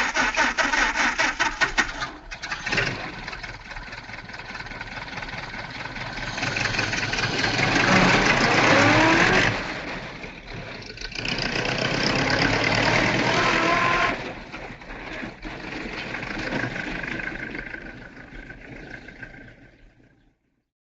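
Antique Ford Model A's four-cylinder engine running with a fast, even chug, then pulling away. The engine note rises to a peak, drops off sharply about nine and a half seconds in, rises again, and fades away into the distance.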